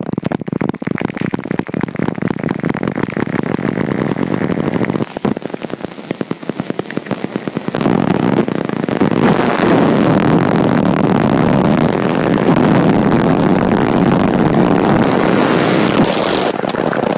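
Gasoline fire burning right at a phone's microphone: dense crackling and popping over a rushing noise, which grows louder and fuller about eight seconds in.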